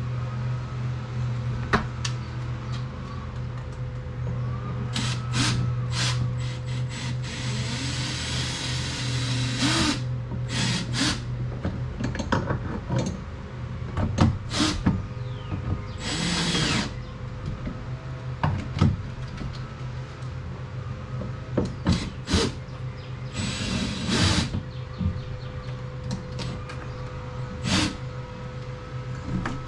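Cordless power drill running in several short bursts, spinning up and down, with clicks and knocks of parts and tools being handled in between. A steady low hum runs underneath.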